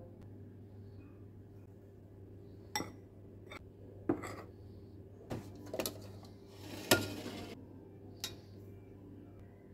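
Metal spoon clinking against a glass mixing bowl while stirring baking powder into flour: several separate clinks and taps, the loudest about seven seconds in, with a brief rushing sound around it.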